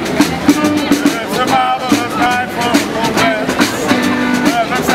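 Street band playing a lively tune: a held low bass line under a wavering melody, over a steady beat of about two strikes a second.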